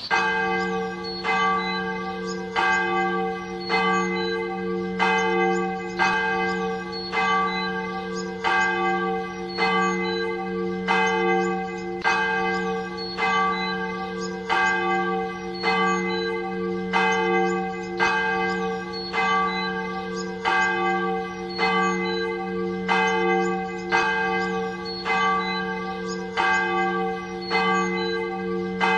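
Church bell tolling at an even pace, about one stroke every 1.2 seconds, each stroke ringing on so that the tones overlap into a steady hum.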